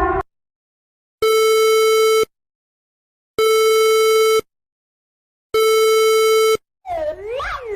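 Emergency alert tones: three long, buzzy beeps of about a second each with silences of about a second between them, then, near the end, a warbling alarm tone that sweeps up and down.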